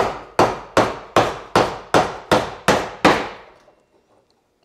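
A mallet striking a chisel about nine times in a steady rhythm, roughly two and a half blows a second, stopping about three seconds in. The chisel is being driven straight down along the knife line to chop the baseline of a half-blind dovetail pin socket.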